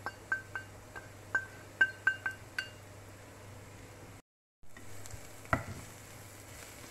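A run of light, ringing metal clinks, about a dozen in the first three seconds, as spoonfuls of turmeric and salt are added to the pan. After a short gap, a spatula knocks once against the non-stick pan and stirs the onions, with a faint sizzle of frying.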